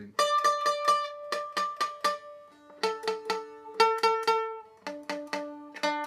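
Seagull Merlin stick dulcimer strummed about four times a second, its fretted notes ringing and changing twice, just under three seconds in and about five seconds in. Fretted this way, the fixed glued bridge leaves two of its strings slightly out of tune while the melody string is fine.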